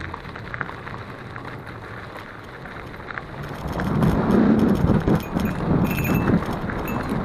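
Mountain bike ride heard from a camera on the bike or rider: tyre and wind noise with scattered rattles and clicks from the bike, getting louder about four seconds in.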